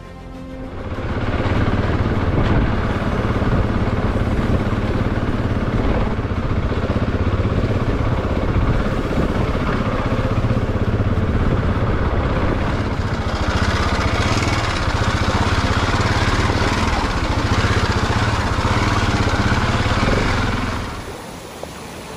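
Husqvarna 701 enduro's single-cylinder engine running as the bike is ridden over a rough, stony track. It comes in about a second in and drops away shortly before the end.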